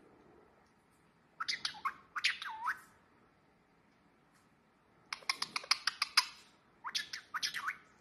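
Indian ringneck parakeet chirping and chattering in three short bouts. The middle bout is a fast run of clicking chirps, and the other two are short calls that bend up and down in pitch.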